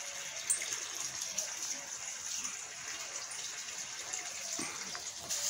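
Steady rushing outdoor background noise with a high hiss, without any clear single event.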